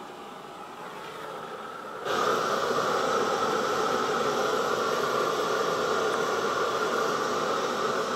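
Hand-held gas flame torch hissing steadily. It jumps suddenly much louder about two seconds in and stays there.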